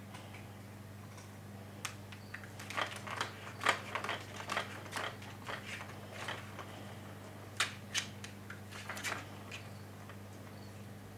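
Irregular clicking and rattling from a Catit Senses Play Circuit, a plastic ball track, as a cat paws and bats at the ball and track. The clicks come in two busy spells, about two seconds in and again about seven and a half seconds in.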